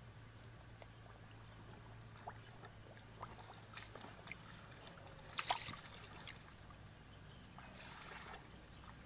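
Faint scattered splashes and rustles of someone working through shallow muddy water and grass stems, with one louder splash about five and a half seconds in and a brief swish of water or stems near the end.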